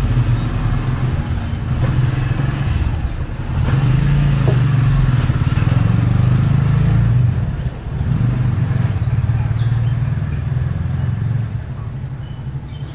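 A motor vehicle's engine running steadily with a low, even hum, growing louder for a few seconds about four seconds in and easing briefly around eight seconds.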